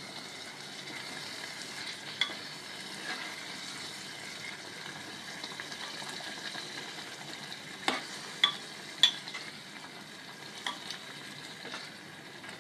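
Mutton and masala sizzling steadily in the cooking pot as it is stirred, with a utensil clicking against the pot a few times.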